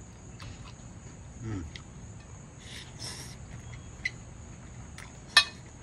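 Someone eating noodles from a bowl with a metal fork: a short falling 'mm' from the voice about a second and a half in, a soft slurp around the middle, and near the end one sharp clink of the fork against the ceramic bowl.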